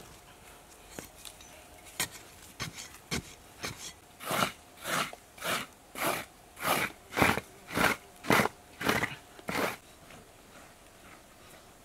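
Short-handled hoe scraping and chopping into dry, sandy soil. A few scattered light knocks come first, then about ten regular strokes, roughly two a second, which stop near the end.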